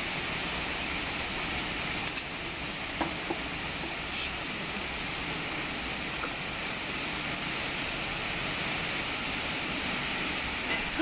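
Heavy storm rain pouring down on the garden and trees: a steady, even rush with a few faint ticks.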